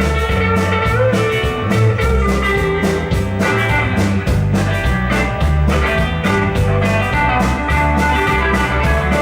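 A rock band playing sixties-style rock, with guitar lines over a bass line and a steady drum-kit beat.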